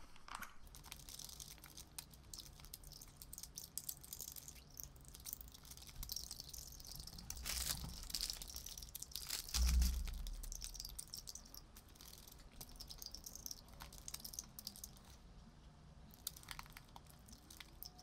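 Faint wet mouth clicks and smacks of someone sucking on a hard candy, with one low thump about ten seconds in.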